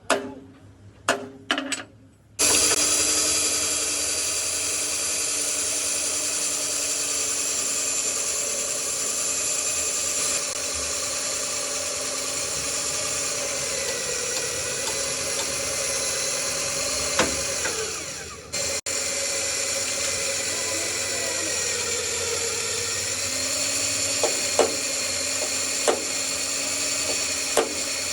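A few sharp knocks, then a power tool starts about two seconds in and runs at a steady high-pitched speed, cutting out for a moment about two-thirds of the way through.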